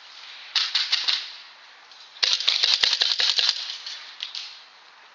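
Airsoft gun firing rapid bursts of sharp clicking shots: a short burst about half a second in, then a longer burst from about two seconds in, with a few single shots after it.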